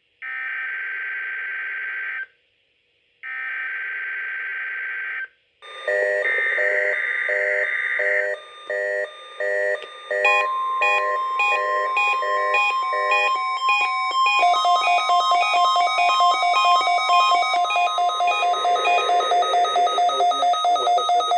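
NOAA Weather Radio Required Weekly Test signal: two buzzy two-second bursts of SAME digital alert data, then a dense run of electronic alert beeps with a long steady tone through the middle and rapid regular beeping near the end.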